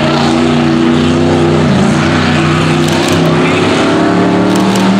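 Mud racing truck's engine running hard at high revs across a mud track, the pitch holding mostly steady with a brief dip about two seconds in.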